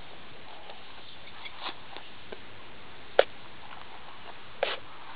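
A few soft taps and scuffs over a steady hiss, the loudest about three seconds in: a small injured bird being set down in a little box lined with paper towels.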